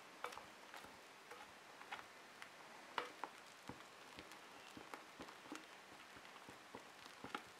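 Faint, irregular clicks and soft squishes of a spatula stirring a thick white foamy slime mixture in a glass bowl, knocking lightly against the glass, with the sharpest click about three seconds in.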